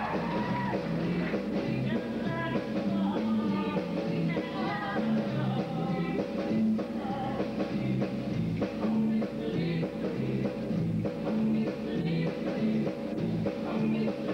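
Show choir singing a rock and roll number over band accompaniment with drums and a bass line that steps from note to note about twice a second.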